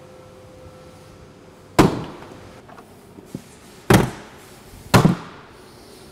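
Three sharp mallet blows, about two seconds in, near four seconds and a second after that, each knocking a plastic base lock or lock pin home into the base of a polypropylene Eurobin pallet box.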